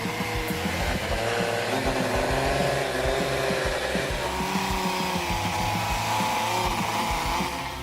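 A vehicle engine running under load, its pitch wavering slowly up and down over a dense noise.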